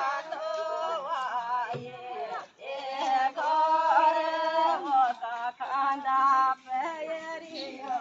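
A group of women singing a mangal geet, a Rajasthani auspicious folk song, in unison and without instruments. They hold high, drawn-out notes in phrases, with short breaks about two and a half seconds in and again near the end.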